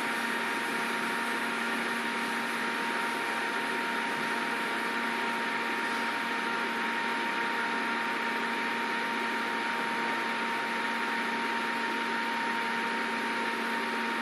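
Steady machine hum with a constant high whine, unchanging throughout, like a fan or cooling unit running.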